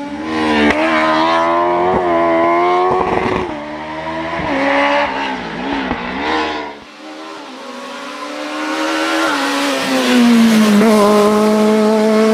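Race car engine revving hard through a slalom course, its pitch rising and falling repeatedly. The engine dies down about seven seconds in, then an engine note climbs again and holds steady near the end.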